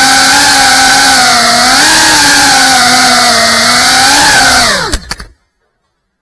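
Small FPV quadcopter's motors and propellers whining loudly, the pitch wavering slightly. About four and a half seconds in the pitch drops sharply as the motors spin down, with a few sharp clicks, and the sound cuts off as the drone comes to rest on the floor.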